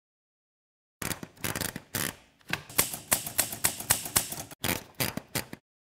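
Manual portable typewriter being typed on: an irregular run of sharp key strikes, a few a second, starting about a second in and stopping shortly before the end.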